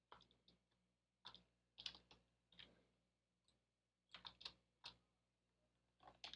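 Faint, scattered clicks of a computer keyboard and mouse during 3D modelling work, coming in small clusters of one to three clicks every second or so.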